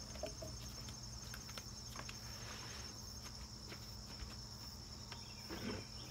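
Insects trilling in a steady high-pitched chorus, with a few faint clicks and knocks from things being handled.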